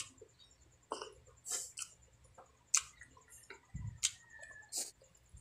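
Close-up wet eating sounds: scattered lip smacks, clicks and chewing as rice and braised pork hock are eaten by hand, with a dull thump about four seconds in.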